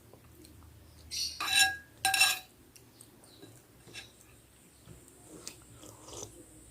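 A metal spoon clinking against a bowl twice, each clink ringing briefly, about a second and two seconds in, followed by soft chewing and small clicks while eating meatballs.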